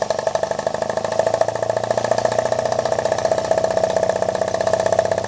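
Scratch-built double-acting uniflow-type model steam engine running fast on steam, just put into reverse. Its big central exhaust beats in a rapid, even rhythm, with a steady higher tone running alongside.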